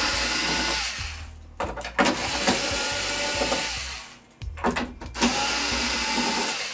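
Cordless power drill-driver running in three bursts of about two seconds each, with a short pause between them, backing out the screws that hold a TV stand.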